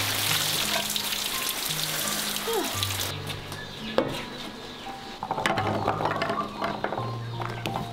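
Water running and splashing for about three seconds, then stopping abruptly. Then peeled garlic cloves are tipped onto a wooden chopping board with a scatter of light clicks, over soft background music.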